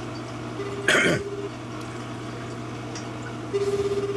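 Japanese telephone ringback tone through a phone's speaker while the call goes unanswered: a low, fast-warbling tone about one second long, heard twice, three seconds apart. About a second in, a brief loud sound falling in pitch cuts across the first ring. A steady low hum runs underneath.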